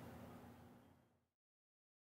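Near silence: faint background hiss fading out to complete silence about a second in.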